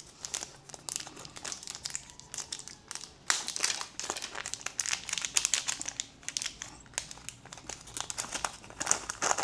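Crinkling and rustling of plastic packaging, with irregular light clicks of small parts being handled.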